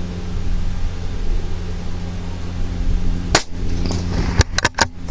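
A single .22 LR rifle shot (Vudoo rimfire rifle, Lapua Center X ammunition) goes off sharply about three seconds in, over a steady low hum. About a second later comes a quick run of sharp clicks and knocks.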